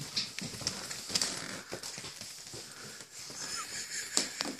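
A Yorkshire terrier's booted paws stepping on a rug and hardwood floor: soft, irregular taps and scuffs, the sharpest click a little past four seconds in.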